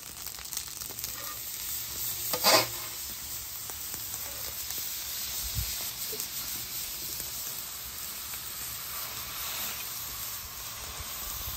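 Raw steaks searing on a hot flat-top griddle: a steady frying sizzle, with a steel steak weight set down on them. A brief knock sounds about two and a half seconds in.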